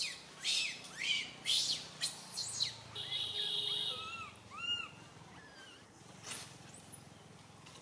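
Baby macaque crying in a run of shrill, high-pitched screams, about two a second, which stop about two and a half seconds in. Softer arched chirping calls follow, and one more rising shriek comes near the end.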